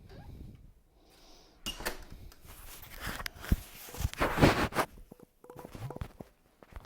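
Indoor handling noises: a run of clicks, knocks and rustles starting about two seconds in, loudest about four seconds in.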